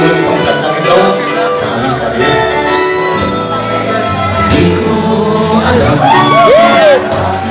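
Live band playing a song, with male voices singing into microphones over drums, guitar and keyboard. About six seconds in, a sung note swoops up and back down.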